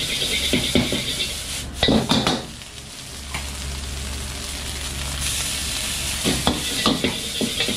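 Steel ladle scraping and clacking against a wok as fried rice is stir-fried, over a steady sizzle and a low roar. The strokes stop for a few seconds in the middle, leaving only the hiss and roar, and resume near the end.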